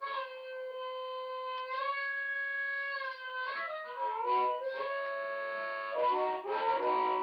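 Blues harmonica cupped against a Monarch TM-12 dynamic microphone and played through a Peavey Mississippi Delta Blues amp, giving an amplified tone with the treble cut off. It starts on one long held note, then moves to quicker notes and chords with bent notes sliding in pitch.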